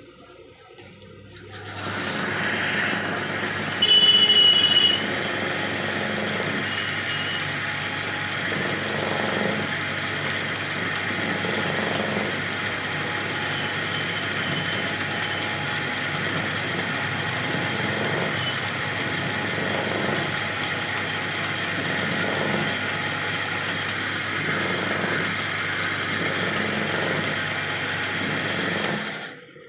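Fan-coil winding machine starting up and running steadily with a low motor hum, then stopping abruptly near the end. About four seconds in there is a brief louder burst with a high tone.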